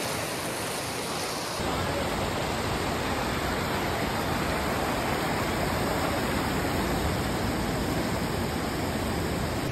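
Fast creek water rushing over rocks, a steady rush that grows fuller and deeper about two seconds in.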